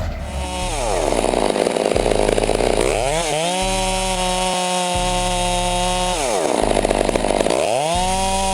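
Two-stroke chainsaw being throttled up and down. It drops to idle about half a second in, then revs back up to a steady full-throttle run for about three seconds. It drops to idle again and revs up once more near the end.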